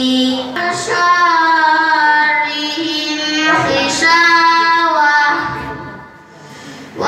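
A boy reciting the Quran in tartil style into a microphone over a PA, singing long held melodic phrases. The phrase fades out about five seconds in, and the next one begins near the end.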